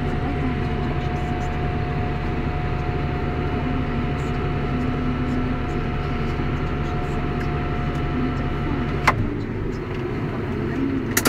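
John Deere 6630 tractor's six-cylinder diesel engine running steadily under load while pulling a plough, with a steady high whine over the engine note. A sharp click comes about nine seconds in, after which the sound changes, and another comes near the end.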